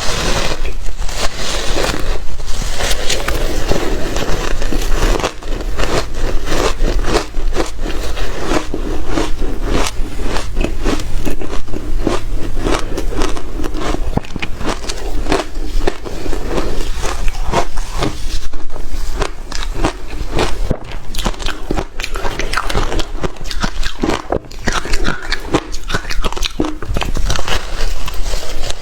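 Close-up crunching and chewing of hard shaved ice, a dense run of crisp, irregular crunches from big bites.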